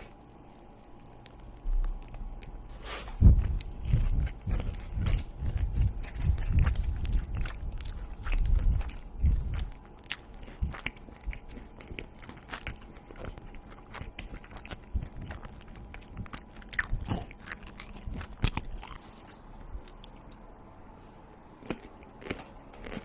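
A person eating close to the microphone: biting and chewing crunchy food. There are loud low thumps and crunches for several seconds about three seconds in, then quieter scattered crunches and clicks.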